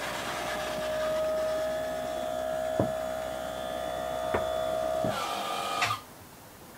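Electric motor of a powered engine-hatch lift running with a steady whine as the cockpit hatch rises, with two light clicks midway; it stops about five to six seconds in as the hatch reaches full open.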